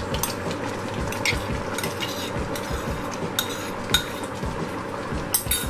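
A spoon stirring and scraping in a pot of butternut squash porridge, with irregular clinks of metal against the pot and a few sharper knocks near the end.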